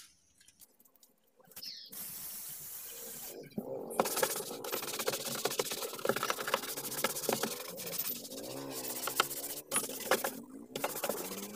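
A short hiss of foam shampoo being sprayed, about two seconds in. Then a bristle brush scrubs foam across the car's plastic dashboard: a steady scratchy rubbing with many small clicks.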